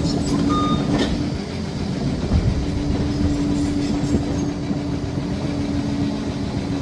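Liebherr PR 746 Litronic crawler dozer working: diesel engine running under load with a steady whine and the steel tracks clattering, a sharp clank about a second in. Its reversing alarm gives a last beep just at the start.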